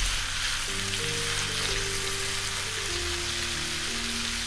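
Potato matchsticks and sliced red onion sizzling in oil in a nonstick pan as they are sautéed over low heat. Soft background music with held notes plays along.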